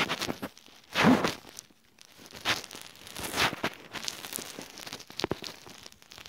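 Rustling and rubbing handling noise: a string of short scrapes and crinkles as the recording phone is moved about and brushes against the bedding, with a stronger burst about a second in.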